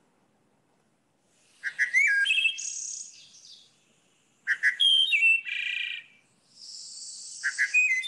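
Wood thrush singing: three flute-like phrases a few seconds apart, each opening with a few clear notes and ending in a higher, fluttering trill.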